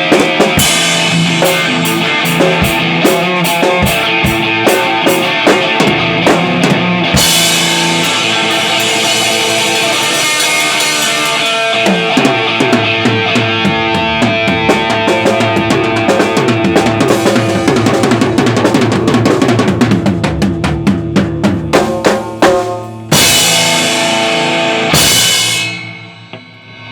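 Heavy rock music driven by a loud drum kit, bass drum and snare prominent. It ends with two big hits near the end that ring out and fade.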